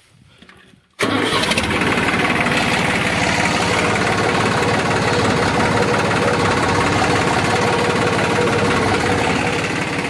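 New Holland 3600-2 tractor's three-cylinder diesel engine, which comes on abruptly about a second in and then runs loudly and steadily. Its silencer has been changed, which the owner says makes it louder.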